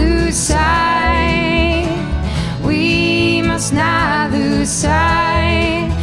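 Acoustic folk band playing live: strummed acoustic guitar and a walking bass line under a sung melody.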